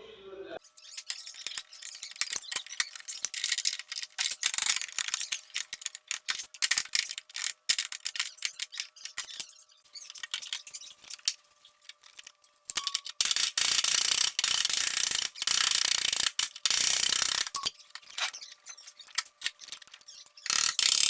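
Rapid metallic ratcheting clicks from hand bodywork tools working on a car's sheet metal, coming in irregular stretches with a long, loudest run in the second half.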